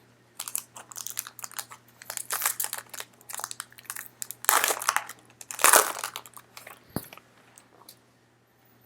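A trading-card pack wrapper crinkling as it is handled and opened, a dense run of crackles with two louder bursts a little past halfway.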